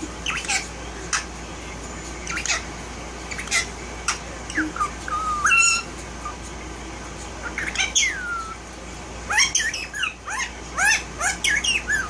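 Indian ringneck parakeet giving scattered short chirps and squawks in little clusters, some notes sliding down in pitch.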